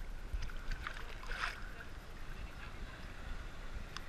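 Sea water sloshing and lapping against a waterproof camera housing held at the surface, with a low rumble of water on the housing. There is a short splash about a second and a half in and a sharp tap near the end.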